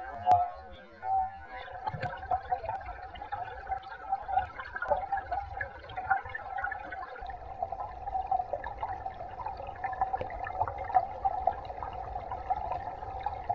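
Mountain-stream water gurgling and bubbling steadily, heard muffled as through a submerged camera, with dense fine crackling. A single sharp knock comes a moment in.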